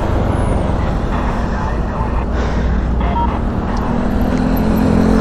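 Wind rushing over the microphone of a moving Honda Airblade scooter, with its engine running underneath; about four seconds in, a steady low engine hum grows louder.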